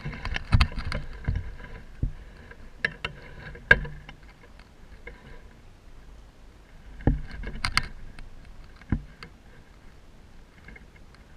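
Gila monster feeding at a quail nest: irregular sharp cracks and clicks with soft low knocks, bunched near the start and again about seven seconds in, typical of eggshell being crunched and licked up.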